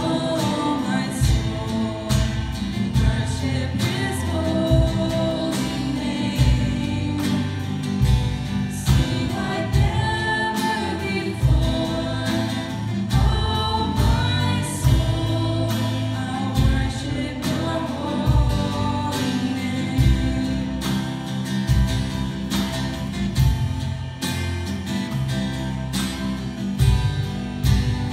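Live worship band playing a Christian worship song: women's voices singing over guitar and drums with a steady beat.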